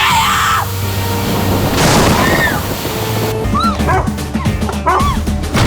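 Background music with a whooshing swell about two seconds in, then a run of short, high yelps over the music.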